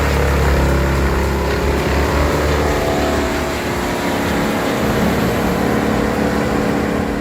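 Large wood chipper's engine running steadily under heavy load as it chips wood.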